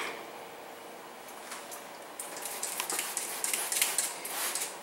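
Wet clear paint-protection film being lifted and handled on a car bumper: a run of small crackles and clicks starting about two seconds in.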